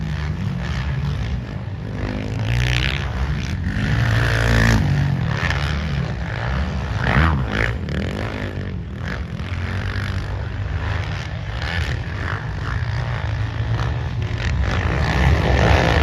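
Engines of several motocross racing quads (ATVs) running hard on the track, their pitch rising and falling as the riders accelerate and back off, growing louder near the end.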